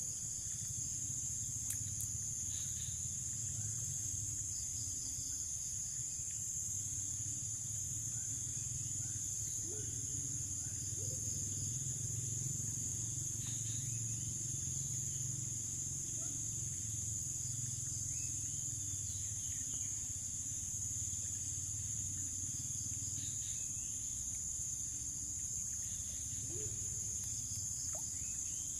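Steady insect chorus: a continuous high-pitched drone of crickets and other insects that never lets up, over a low rumble.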